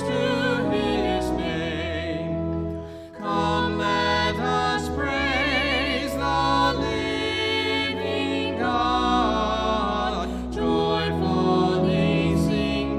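Music: a melody sung with strong vibrato over sustained low accompaniment, with a brief break about three seconds in.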